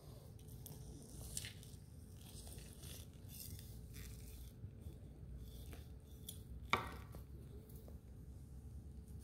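A long knife slicing through the crispy crust and flesh of an air-fried pork roast on a wooden cutting board, with small scattered crackles as the blade cuts. There is one sharp knock about two-thirds of the way through.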